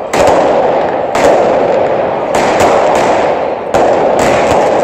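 Fireworks exploding in the sky: about seven sharp bangs at uneven intervals, a couple in quick pairs, over a steady loud background din.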